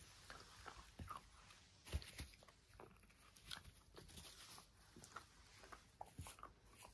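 Faint scattered clicks and rustles from a Jack Russell terrier scrambling about on grass, with a sharper knock about two seconds in.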